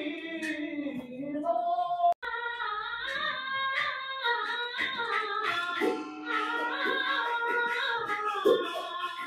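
Sichuan opera singing: a woman's voice in long, wavering, held sung lines. It breaks off for an instant about two seconds in.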